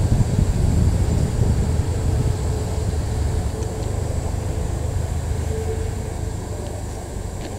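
Small steam tank locomotive hauling a train of coaches slowly on a curve: a steady low rumble of wheels and running gear that eases off gradually in the second half.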